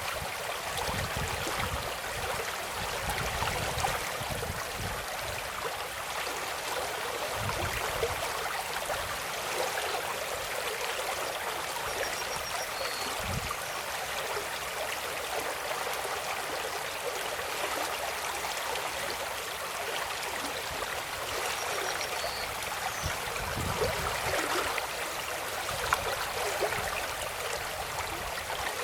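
Running water, a steady rushing and babbling like a small stream, with occasional low rumbles.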